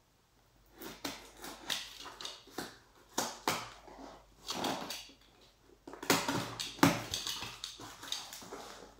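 Box cutter slitting the packing tape on a cardboard shipping box: a run of short, sudden scrapes and rasps of blade and tape on cardboard. The cardboard flaps are then pulled open, with the loudest scrapes about six to seven seconds in.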